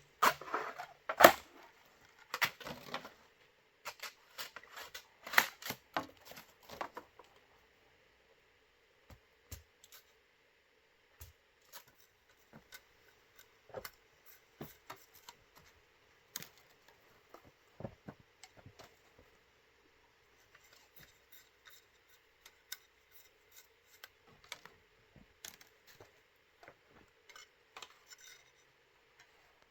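Sharp knocks and clicks of hand work on bamboo, loud and close together for the first several seconds, then sparser, quieter taps and scrapes.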